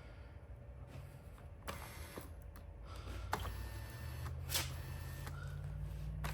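Electric power seat motor of a 4th-gen Trans Am driver's seat running on jumper leads from a 12-volt battery, driving the seat track with a low hum that rises a little in pitch from about four seconds in, with a few sharp clicks.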